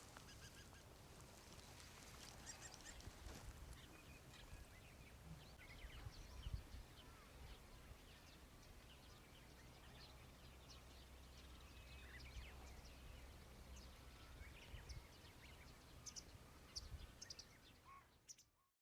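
Faint bird chirps on and off over a low, steady rumble; the sound cuts out just before the end.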